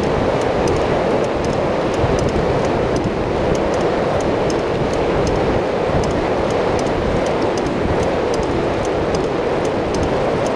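Steady rush of wind over the microphone mixed with road rumble from travelling at speed, with faint sharp clicks a few times a second.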